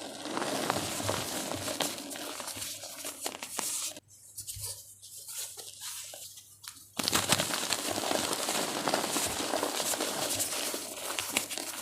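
Crumbly chalk-like blocks being crushed, a dense crackling crumble. It thins to a few separate crunches for a few seconds around the middle, then comes back denser and louder.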